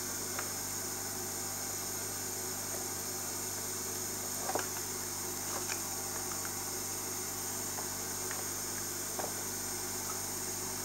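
A few faint clicks and taps as a switching power supply's circuit board and plastic brick case are handled, the loudest about four and a half seconds in, over a steady low hum and hiss.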